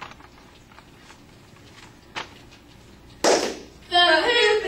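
Quiet room tone with a faint tick, then a single sharp clap a little over three seconds in. Girls' voices then start shouting a cheer together near the end.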